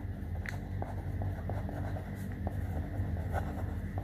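Pen writing on paper: light scratching strokes as a line of words is written out, over a steady low hum.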